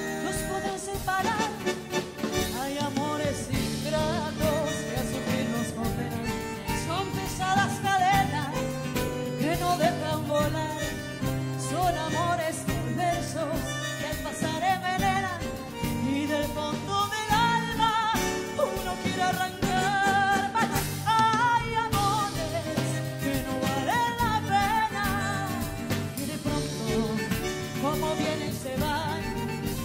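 A woman singing a song live, backed by a band with a drum kit.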